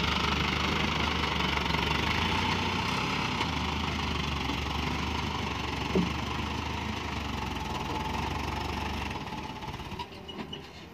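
Loaded light dump truck's diesel engine running steadily at idle, with a brief thump about six seconds in; the engine sound fades about nine seconds in.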